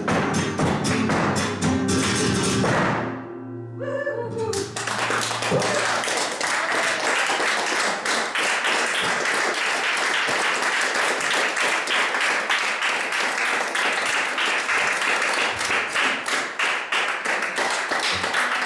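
Flamenco guitar and dancer's footwork taps bring the piece to a close about three seconds in. After a moment's ring-out the audience breaks into steady applause that carries on to the end.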